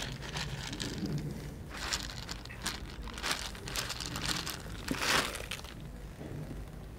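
Dry cat kibble poured from a plastic bottle onto concrete: pellets rattling and scattering in several short bursts, the loudest about five seconds in.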